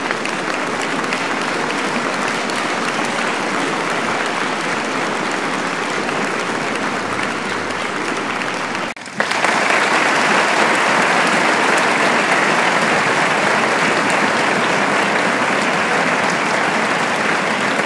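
Dense, steady applause from a crowd, many hands clapping at once. It breaks off for a moment about nine seconds in and comes back louder.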